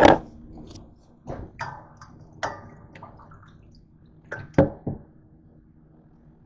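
A series of knocks and clatters: the camera being bumped as it is moved, then a white plastic colander of grapes being handled and knocked about in a stainless steel sink. The loudest knock comes right at the start, with a pair of sharp ones near the end.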